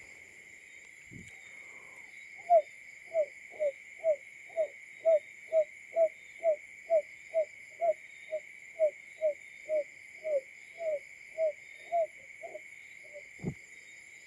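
Simulated barred buttonquail call: a long, regular series of short low hoots, about two a second, each note dipping slightly in pitch, over a steady high insect-like hiss. A single sharp click comes near the end.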